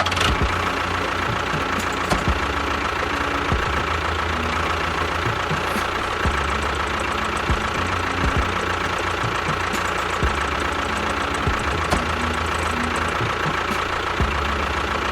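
An engine running steadily, with a low rhythmic chugging that fades in and out and a steady high whine over it.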